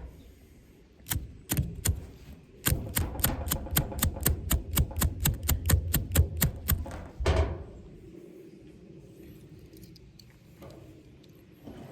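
Striker of a Zippo multi-tool fire starter scraped hard again and again to throw sparks into tinder: two strikes, then a fast, even run of about five strikes a second for four seconds, ending on one longer scrape.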